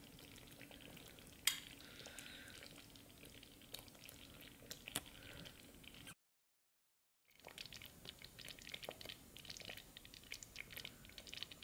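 Thick curry simmering in an electric cooker's stainless inner pot, faintly bubbling with scattered small pops. The sound drops out completely for about a second in the middle.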